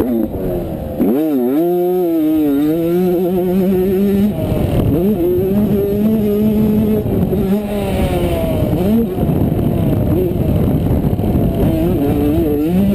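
Two-stroke 85cc motocross bike engine revving hard on a dirt track, its pitch dropping and climbing sharply with throttle and gear changes, with a steady rush of wind on the helmet camera's microphone.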